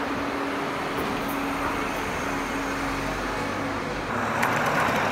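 Street ambience with road traffic: a steady engine hum under a wash of city noise, swelling louder near the end.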